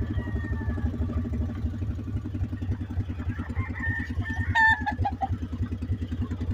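A rooster crows once about halfway through, over the steady pulsing run of a small ride-on vehicle's engine.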